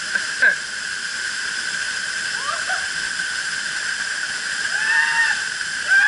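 Waterfall pouring into a rocky plunge pool: a steady, even rush of falling water. Two short cries rise over it, one about two and a half seconds in and a louder one about five seconds in.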